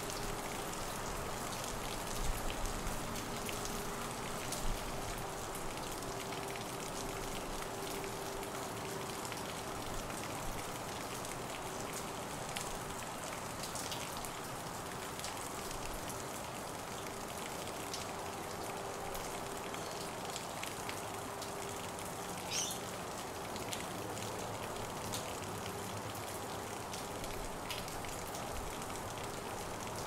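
Steady rain falling, an even hiss with many single drops ticking close by. A short high call sounds once about two-thirds of the way through.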